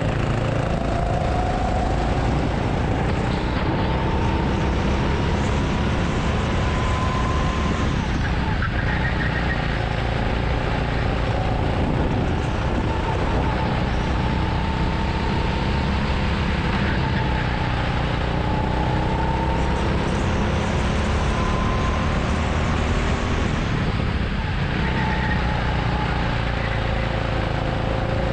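Go-kart engine running hard, its pitch rising and falling repeatedly as the kart speeds up on the straights and slows for the corners, over a steady low rush of wind on the onboard microphone.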